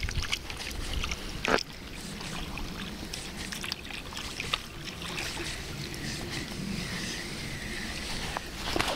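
Steady outdoor wind and water noise, with a single sharp click about a second and a half in.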